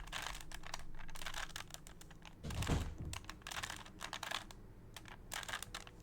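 Plastic clicks and clacks of an original Rubik's Cube being turned by hand in quick runs of repeated moves, with a louder, duller thump a little before the middle.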